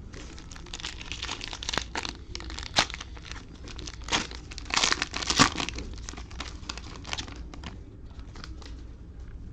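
Plastic cello pack wrapper of Panini Mosaic football cards being torn open and crinkled, crackling irregularly for several seconds and loudest about five seconds in.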